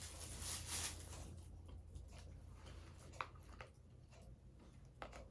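Faint crunching of a snack being eaten for about the first second and a half, then quiet with two small sharp clicks, about three and five seconds in.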